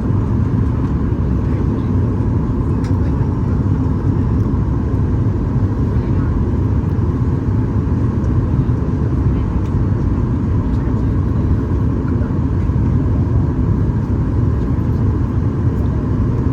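Steady cabin noise inside a Boeing 737 MAX 8-200 on approach: airflow rush and the hum of its CFM LEAP-1B engines, heard from a forward window seat.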